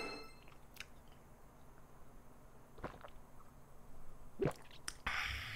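A woman knocking back a shot of soju: mostly quiet, with a few faint clicks as she drinks and a short hiss near the end.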